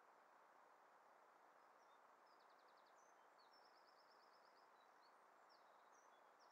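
Near silence with a steady faint hiss, and a distant songbird singing faintly: a short trill a little over two seconds in, a longer rapid trill about three and a half seconds in, then scattered short chirps.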